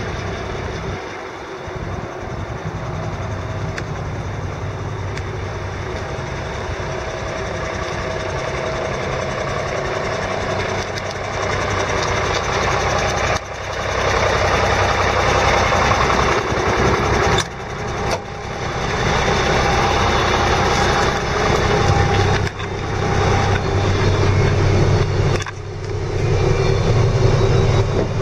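1988 International S1954 medium-duty truck engine idling steadily. The idle gets louder from about halfway through and is broken by a few brief drops.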